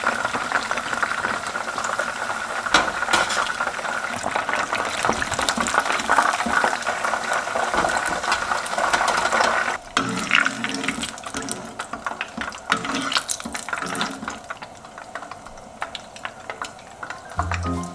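Battered chicken deep-frying in hot oil: a dense sizzle full of crackling pops. About ten seconds in it drops suddenly to a quieter bubbling of oil, and music comes in near the end.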